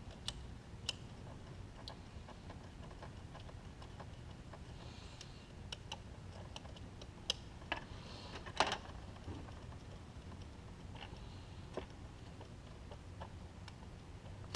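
Scattered light clicks and taps of small parts and hand tools being handled, with a few sharper clicks about halfway through, over a faint low hum.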